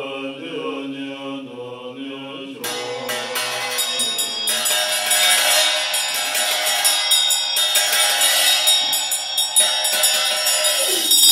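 Tibetan Buddhist monks chanting together. About two and a half seconds in, small ritual hand bells join, rung rapidly and getting louder over the chant.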